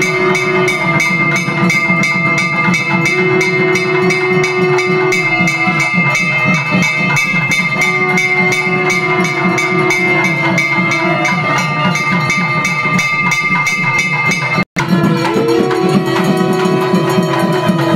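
Traditional temple music during an aarti: a wind instrument playing long held notes over fast, continuous percussion. The sound drops out for an instant about fifteen seconds in.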